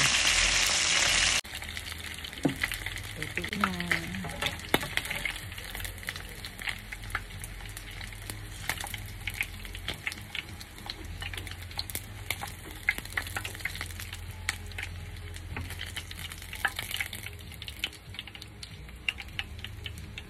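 Chicken drumsticks frying in hot oil in a nonstick pan: a steady sizzle scattered with crackles and pops. It is loud and hissing at first, then drops sharply about a second and a half in. Metal tongs click against the pan as the pieces are lifted out.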